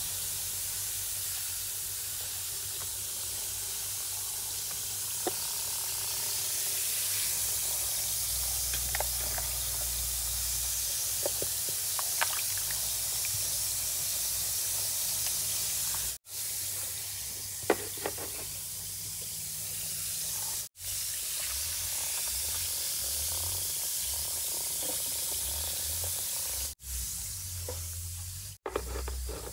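A bath fizz bomb dissolving in a tub of water: a steady fizzing hiss, with small splashes and knocks as hands work it in the water. The sound drops out briefly four times in the second half.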